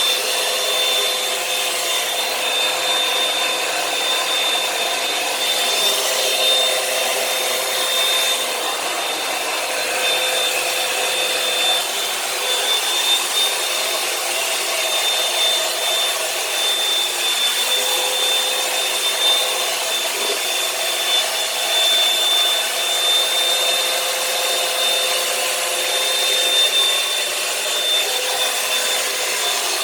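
Revlon One-Step hot-air brush hair dryer running steadily while drying hair: a rush of blown air with a steady high whine over it.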